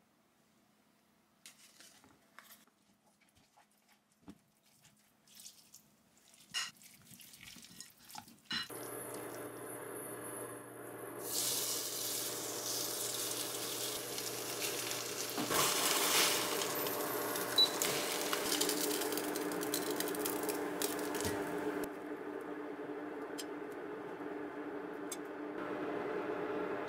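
Light clinks of a spoon against a glass bowl as flour is mixed into cabbage. After about eight seconds a steady frying sizzle comes in with a held hum, louder from about eleven seconds, as a cabbage batter cooks in a pan on an induction hob.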